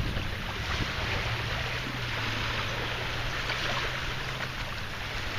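Steady rushing noise of wind and water, with a faint low hum through the middle.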